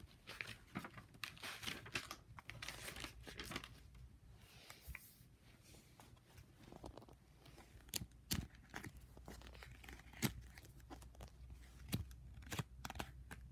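Sheets of glossy paper stickers being handled and flipped, a quiet paper rustling and crinkling, with a few sharp ticks in the second half.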